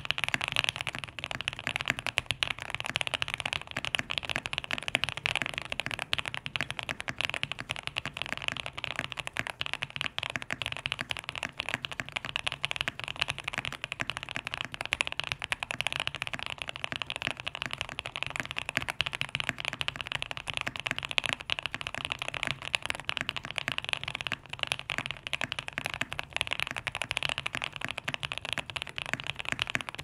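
Fast, continuous typing on a QK65 custom mechanical keyboard fitted with lubed Alpaca linear switches, a POM plate and GMK doubleshot keycaps: a dense, unbroken stream of key clacks.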